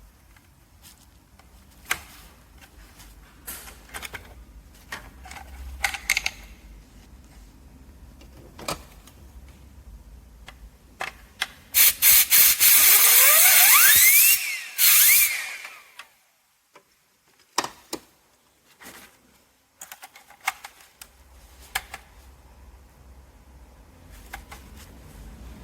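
Small parts clicking and knocking as they are handled. About twelve seconds in come a few short bursts of spray, then about three seconds of loud, steady spray hiss with a whine under it that rises in pitch.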